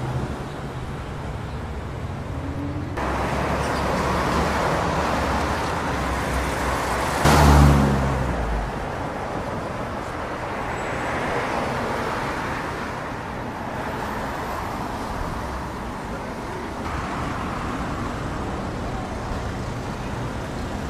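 Street traffic: cars driving past steadily, with one vehicle passing close and loud about seven seconds in.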